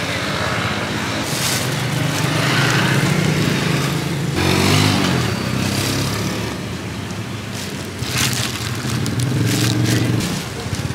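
Motorbike engines running past on the street, swelling twice as they go by. Near the end come short sharp snips and crinkling, from scissors and a plastic-bag glove.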